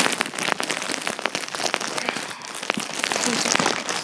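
Plastic packaging bag crinkling and rustling as it is handled, a dense run of irregular crackles.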